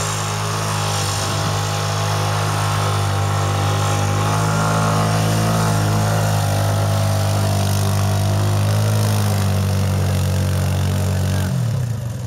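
Quad bike (ATV) engine running at steady, fairly high revs as the quad ploughs through snowy mud. Near the end the engine note drops as the quad bogs down in the mud, its rear wheel spinning and throwing mud.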